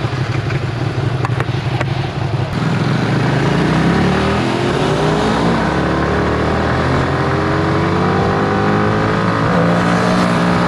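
Yamaha R15 V3's single-cylinder engine idling, then accelerating hard from a stop about two and a half seconds in. Its pitch climbs and drops back at each of several upshifts.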